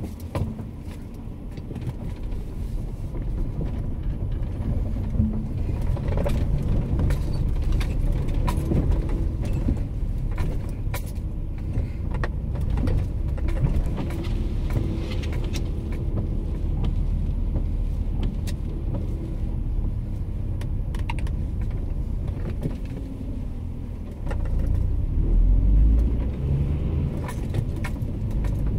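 Car driving, heard inside the cabin: a steady low rumble of engine and tyres on the road, with scattered small clicks and rattles. The rumble grows louder for about two seconds near the end.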